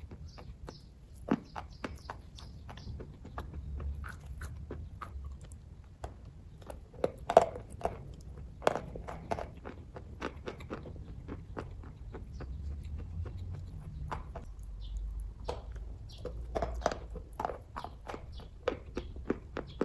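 Close-up eating sounds of kaju katli: a person biting and chewing the cashew fudge, with many irregular wet mouth clicks and smacks.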